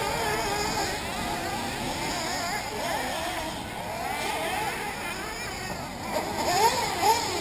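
Several 1/8-scale nitro buggy engines buzzing high around the track, their pitch rising and falling constantly as they rev and back off through the corners and jumps. One revs louder, in quick rising sweeps, near the end.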